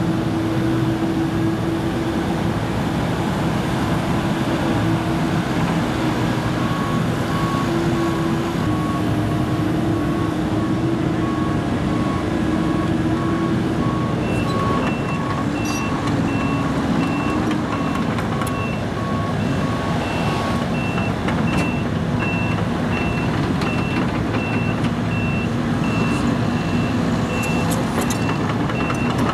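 Case CX75C SR mini excavator's diesel engine running under load while it digs and swings its bucket. Over it, backup alarms beep rapidly: a lower-pitched one from about six seconds in to about twenty seconds, and a higher-pitched one starting near the middle and continuing to the end.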